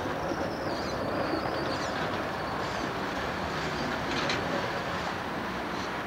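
Articulated GVB Amsterdam street tram rolling along its rails through a curve. A faint, high wavering wheel squeal comes in the first couple of seconds, and a few clicks from the wheels on the track come about four seconds in.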